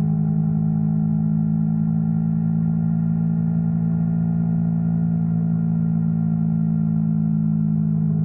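Yamaha R3's parallel-twin engine running at steady revs, a constant humming drone.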